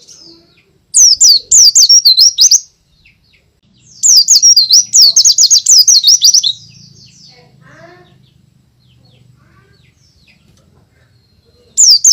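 A pleci (white-eye, Zosterops) in full song, singing loud bursts of rapid, high, up-and-down warbling notes. There are two bursts of about two seconds each and a third starting near the end, with faint chirps between.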